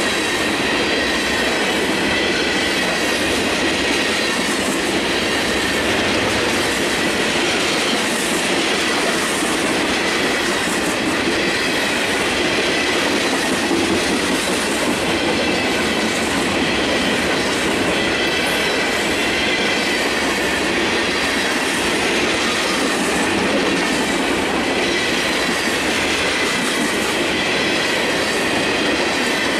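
Freight train of open-top hopper cars rolling past at close range: steel wheels running over the rails in a steady, dense rumble, with a thin high squeal held throughout.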